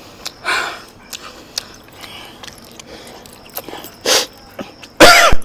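Small scattered clicks and knocks, then near the end a man's loud, short vocal cry whose pitch rises and falls, in the manner of a wild, animal-like outburst.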